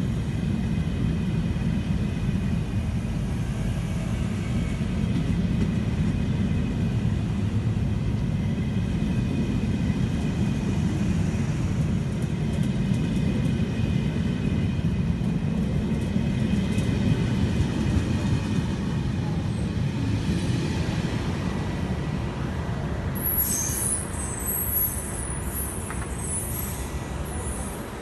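A train passing close by, its wheels rumbling steadily over the rails. Sharp, high-pitched wheel squeal breaks in over the last few seconds.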